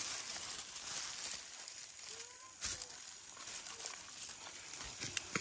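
Corn leaves and weeds rustling and crackling as someone pushes through a cornfield on foot, with footsteps and two louder brushes, about two and a half seconds in and near the end.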